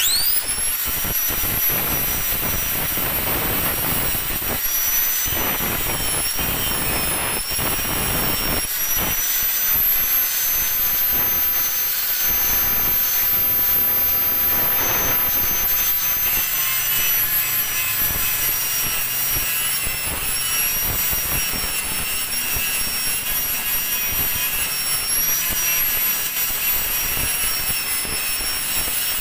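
Electric angle grinder with an abrasive disc starting up and quickly reaching a steady high whine, grinding down a weld bead on a cast aluminium motorcycle engine crankcase. The pitch dips slightly now and then over a rough grinding noise.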